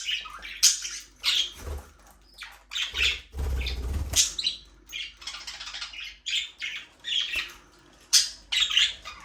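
Budgerigars chirping and chattering, with many short, quick calls overlapping one another. About three seconds in, a low rumble lasts for roughly a second.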